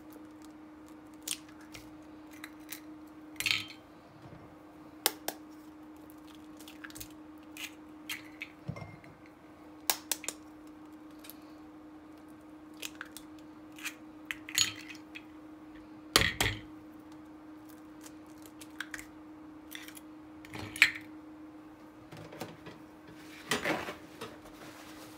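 Kitchen clatter of bowls and utensils while sugar and eggs go into a mixing bowl: scattered light clicks and taps, a few sharper knocks about two-thirds of the way through, over a steady low hum.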